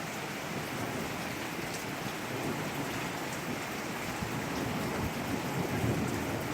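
Heavy rain falling on surfaces, a steady hiss. A low rumble of thunder builds near the end.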